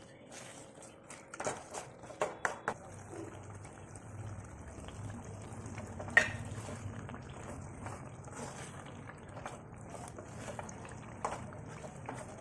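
Metal spoon clinking and scraping against a metal kadai while stirring thick egg curry gravy, which bubbles at a simmer underneath. A sharp clink about six seconds in is the loudest sound.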